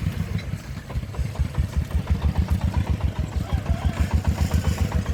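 Công nông's single-cylinder diesel engine chugging in a steady, even beat of low thumps, about six or seven a second, growing louder after the first second or so.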